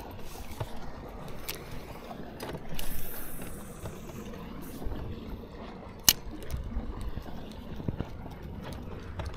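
Handling noises on a fishing boat: scattered clicks and knocks of gear over water and boat noise, with a brief hiss around three seconds in and a sharp click about six seconds in.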